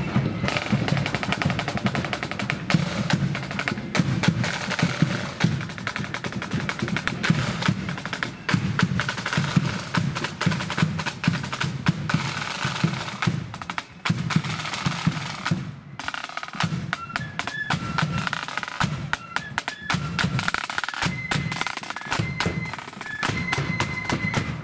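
A blood-and-thunder flute band's snare drums and bass drum playing a fast, loud marching beat. About two-thirds of the way through, the drumming eases briefly, and high flute notes start to come in over the drums near the end.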